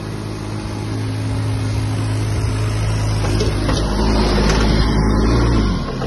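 Kubota U10-3 micro excavator's small three-cylinder diesel engine running with a steady hum. It grows louder through the middle and eases back slightly near the end.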